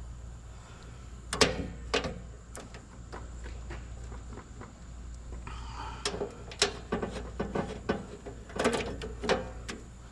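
Scattered metallic clicks and clacks of hand tools and wires being worked inside an electrical breaker panel as circuit conductors are disconnected, with a cluster of knocks near the end.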